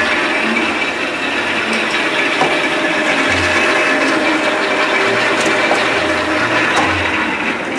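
Stand mixer running steadily, its motor and gears whirring as the beater churns ice cream base frozen with liquid nitrogen.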